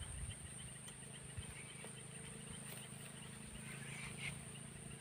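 Faint, steady, high-pitched insect chorus.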